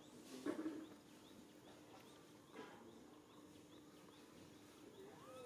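Faint outdoor ambience: soft, evenly repeated high chirps in the background, a brief louder rustle or squeak about half a second in, and a short rising-and-falling squeak near the end.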